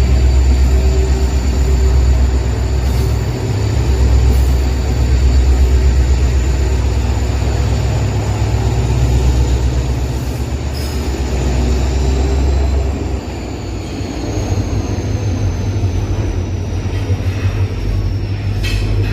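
Twin WDG4D diesel-electric locomotives running with a goods train: a heavy, pulsing low engine rumble with a thin high whine over it. About thirteen seconds in the rumble eases and the whine slowly falls in pitch.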